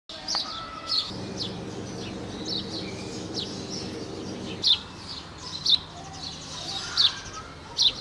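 A small bird giving sharp, high chirps, roughly one a second at irregular spacing, about ten in all. A low steady hum sits underneath during the first half and stops a little past halfway.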